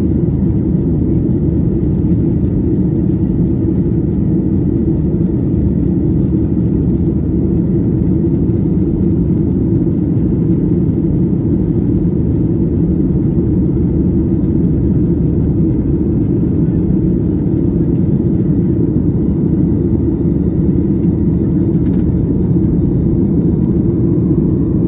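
Steady cabin noise of a Boeing 737 climbing after takeoff, heard inside the cabin: an even, deep rumble of the engines and airflow that holds level throughout.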